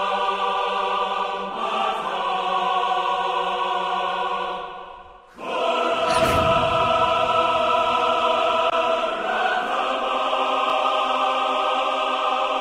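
Choral trailer music holding a sustained chord. It fades away about five seconds in, then swells back louder with a single hit about six seconds in, and holds the chord.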